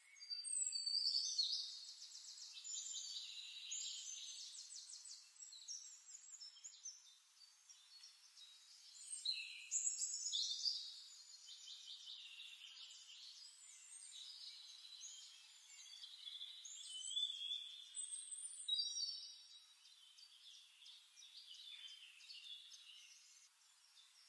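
Felt-tip marker nib scratching over paper in rapid colouring strokes, in spells that come and go.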